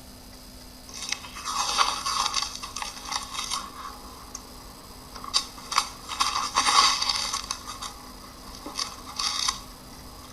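Scratchy rasping noise in three bursts: two of about two and a half seconds, then a short one near the end, each full of small clicks.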